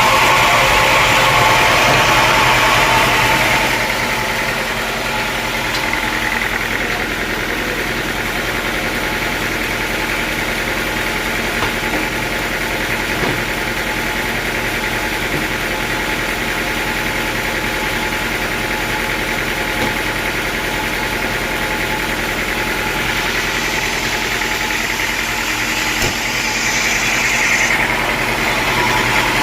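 Sawmill engine running steadily at idle between cuts. It is a little louder for the first few seconds and picks up again near the end, just before the blade goes into the wood.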